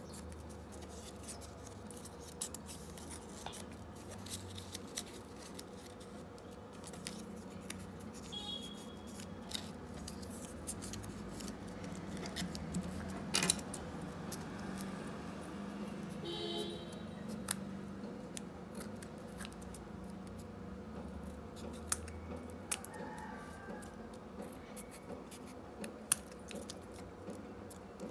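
Scissors snipping through a small stack of folded paper in many short, separate cuts as it is trimmed round.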